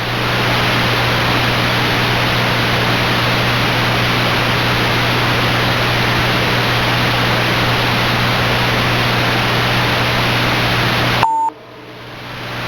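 Loud, even hiss of radio static with a low steady hum underneath. It cuts off abruptly near the end, followed by a short single beep.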